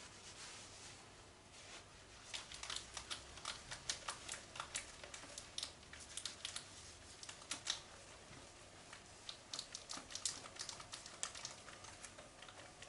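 A whiteboard being wiped clean: a quick series of short, scratchy rubbing strokes from about two seconds in, pausing briefly in the middle and thinning out near the end.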